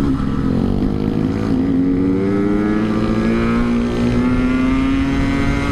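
A Yamaha RX-King's 135 cc two-stroke single, fitted with an Altec C20 aftermarket exhaust, pulls hard under acceleration with its pitch climbing steadily for about five seconds. The pitch drops slightly near the end.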